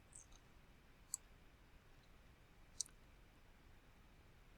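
Computer mouse clicking a few times, sparse and separate, against near silence.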